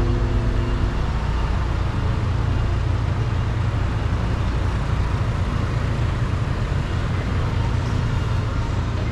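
City street traffic noise: a steady, even rumble of road vehicles. The last notes of a song end about a second in.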